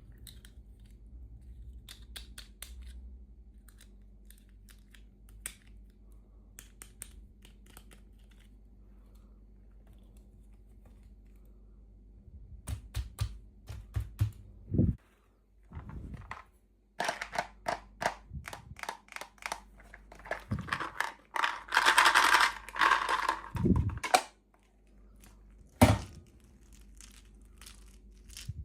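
Plastic packaging being handled, crinkled and torn open, with scattered light clicks and taps. The crackling thickens about halfway through and is loudest about three quarters in, followed by one sharp knock.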